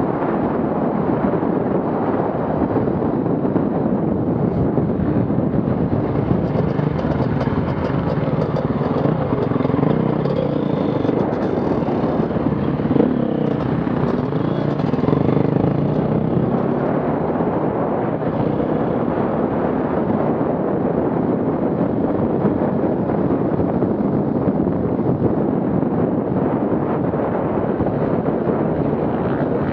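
Off-road vehicle engines running steadily under load, with the pitch rising and falling around the middle as the engines are revved.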